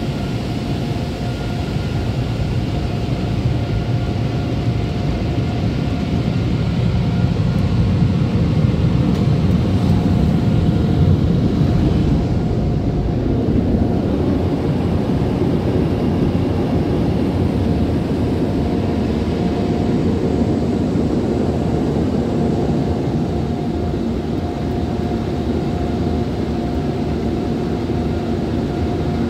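Car wash tunnel dryer blowers running: a loud, steady roar with a constant whine, heard from inside the car cabin.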